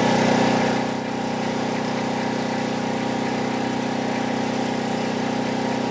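An engine idling steadily at a constant speed, with an even hum that does not change in pitch.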